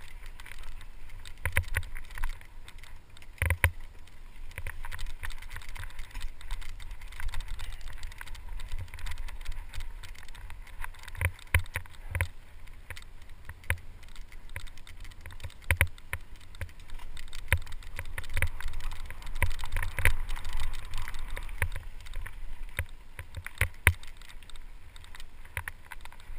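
Mountain bike riding down a rocky dirt singletrack, heard from a helmet camera: wind rumbling on the microphone and tyres on dirt, with frequent irregular clatters and knocks as the bike rolls over rocks and bumps.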